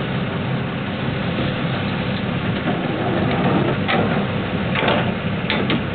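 Sportfishing boat's engine running under a steady rush of wind and water along the hull, with a few short louder swishes about four and five seconds in.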